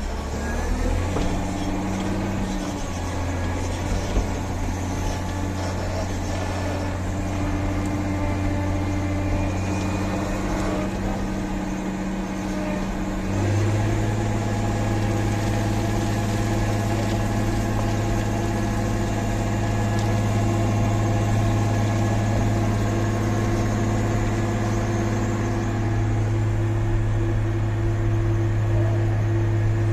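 Heavy diesel engine of a motor grader running steadily under work. About 13 seconds in its note shifts and gets a little louder, as the engine speed or load changes.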